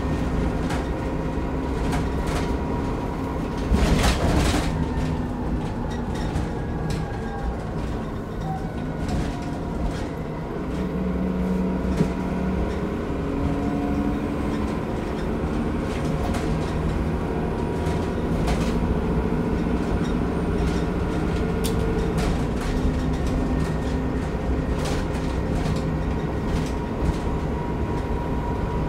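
Transbus Trident double-decker bus heard from inside on the upper deck: a steady rumble from the engine and running gear, its pitch rising and falling as the bus changes speed. Rattles and knocks from the body and fittings run through it, with one loud knock about four seconds in.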